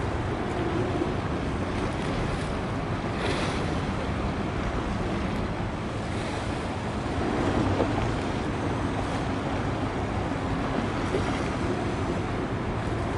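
Steady rushing noise of wind and water, swelling slightly about two thirds of the way through.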